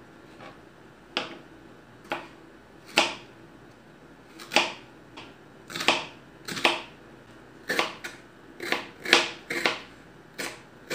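Kitchen knife chopping raw plantain peel into thin strips on a cutting board: sharp separate chops, about a second apart at first and quicker and more frequent from about seven seconds in.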